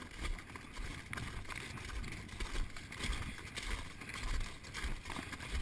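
Footsteps crunching irregularly on glacier ice while walking, with wind rumbling on the microphone.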